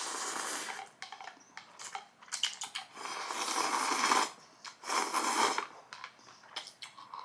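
Slurping hot ramen noodles and soup: three long noisy slurps, the longest about three seconds in, with short clicks and smacks of eating between them.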